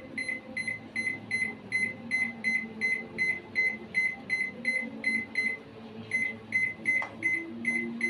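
Microwave oven timer ticking evenly, about three short high ticks a second, over a low steady hum.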